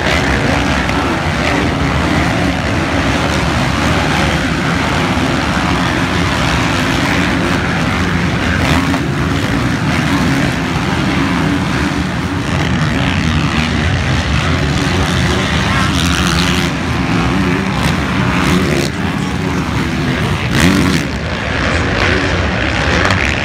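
A pack of motocross bikes racing, many engines running hard at once, their overlapping notes wavering up and down, with a brief louder surge near the end.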